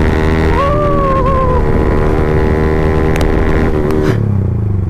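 Yamaha MT-15's 155 cc single-cylinder engine running through an Akrapovic full-system exhaust with the dB killer removed, held at a steady pitch while riding; a little after four seconds the throttle closes and the engine note drops away. A brief wavering high tone sounds about half a second in and lasts about a second.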